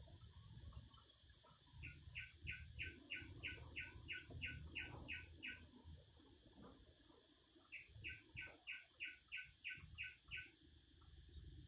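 A cicada singing: a loud, steady, very high buzz that starts about a second in and cuts off abruptly near the end. Over it a bird repeats a short chirp about three times a second, in two runs.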